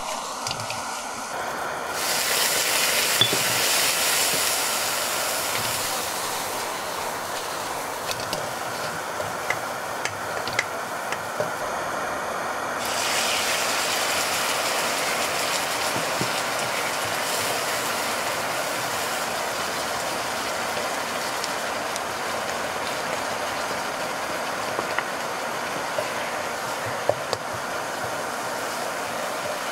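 Food sizzling in a hot wok as shrimp and vegetables are stir-fried with a wooden spatula, with light scrapes and taps of the spatula on the pan. The sizzle swells about two seconds in, and again about thirteen seconds in as liquid is poured into the wok.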